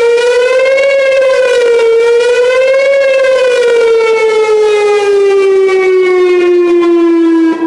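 Whelen WPS-2910 electronic outdoor warning siren sounding the wavering attack signal, its pitch rising and falling about every two seconds. About three seconds in it stops wavering and slides steadily down in pitch, then cuts off near the end as the signal ends.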